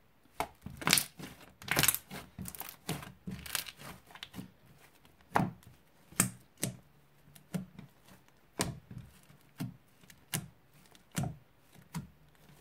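Slime being kneaded and squeezed by hand, giving a run of irregular sharp wet clicks and pops. They come thick and fast for the first few seconds, then thin out to single pops every half second or so.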